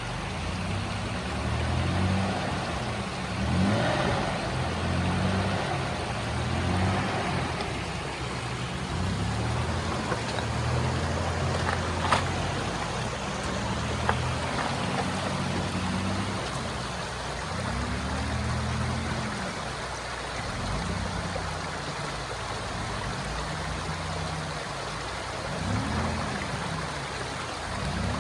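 Off-road truck engine running on a trail, its pitch rising and falling as the throttle is worked, with two sharp clicks about two seconds apart midway through.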